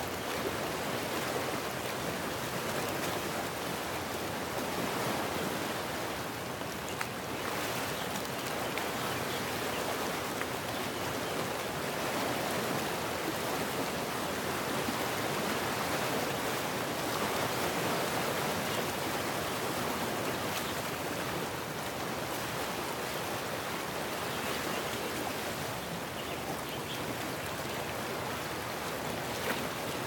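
Small sea waves washing onto a sandy beach: a continuous rushing wash that swells a little in the middle.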